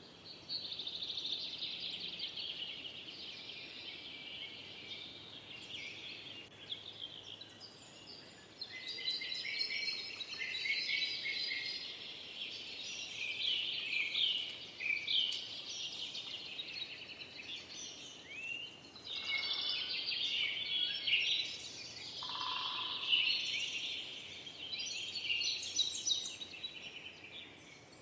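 Forest songbirds singing together, several at once: a dense, continuous chorus of chirps, trills and warbled phrases, with a short lower call about three-quarters of the way through.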